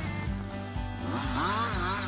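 Background music with a steady beat, over a chainsaw running.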